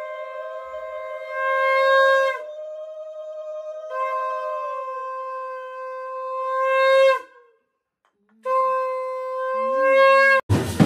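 Conch shells (shankha) blown in three long held blasts, two conches overlapping at first, each blast swelling louder toward its end, with a short silent gap between the last two. In the final half-second it gives way abruptly to loud band music with drums.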